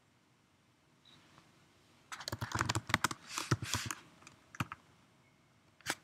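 Typing on a computer keyboard: a quick run of keystrokes lasting about two seconds, then two lone key presses, the last one near the end.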